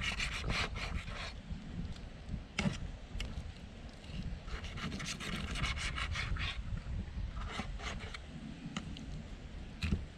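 Kitchen knife sawing through grilled chicken on a wooden cutting board: bursts of quick back-and-forth strokes, the blade scraping the board, with a couple of single sharp knocks as it comes down on the wood.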